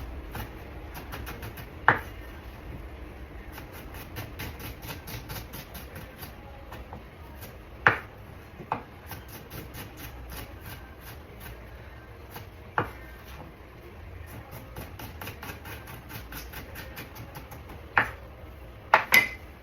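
Knife chopping onions on a cutting board in quick, even strokes, about four a second, in runs with short pauses. A few louder single knocks come through, and a steady low hum sits underneath.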